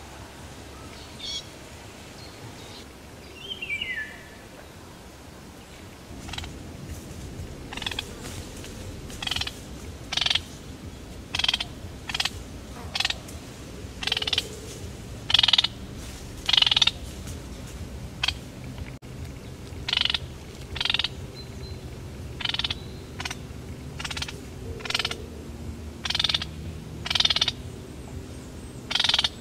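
Common kingfisher giving a series of short, shrill calls, about one a second, with a falling call a few seconds before the series begins.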